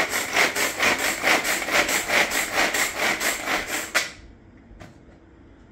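Pull-cord hand food chopper being worked in quick pulls, a rasping whirr of the spinning blades about two and a half times a second, chopping green chillies. It stops about four seconds in.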